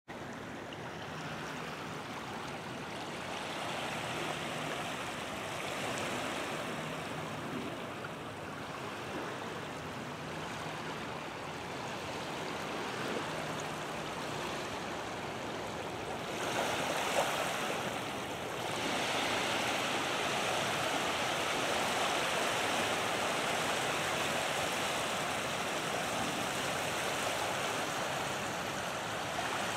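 Small waves washing in over a shallow sandy beach: a steady rush of water that swells a little over halfway through and stays louder.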